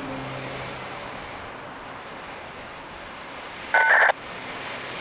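Autorack freight cars rolling slowly past with a steady rumble and hiss, a low hum dying away in the first second. About four seconds in, a short, loud two-tone electronic beep cuts in briefly.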